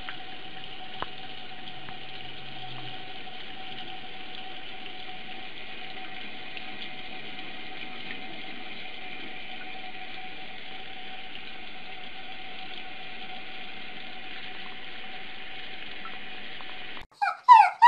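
Tap water running steadily into a bathroom sink, an even hiss with a faint steady whine in it; it cuts off about a second before the end. It is followed by a few short, loud whimpers from a dog, falling in pitch.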